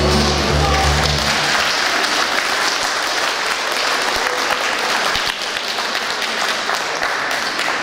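A congregation applauding, a dense steady clapping that eases slightly toward the end. The last low note of the accompanying music dies away in the first second and a half.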